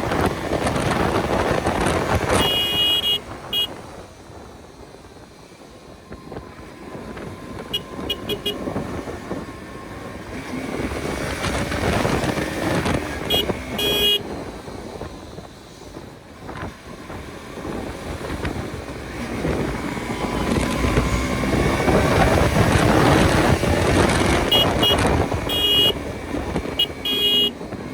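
KTM RC 200 motorcycle being ridden, with wind and traffic noise heavy on the microphone. The noise dips for a few seconds and then builds again. Short horn toots come several times, most around 3 seconds in, about 14 seconds in and near the end.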